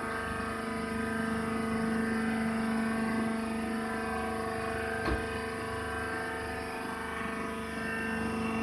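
Hydraulic baler press's electric motor and pump running with a steady hum, with one short click about five seconds in.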